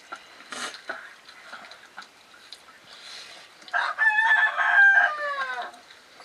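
A rooster crows once, a call of about two seconds that falls in pitch at its end, over faint clicks of children eating by hand from metal plates.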